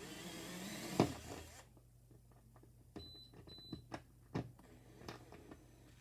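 Hand work on a stubborn mounting screw: scraping for the first second and a half with a sharp knock about a second in, then scattered knocks and clicks of the screwdriver against the screw and plastic housing, with two brief high whines about three seconds in.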